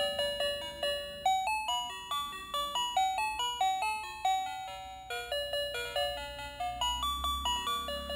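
Battery-operated dancing lion drummer toy playing its built-in electronic tune: a quick run of bright, bell-like beeping notes, about three or four a second.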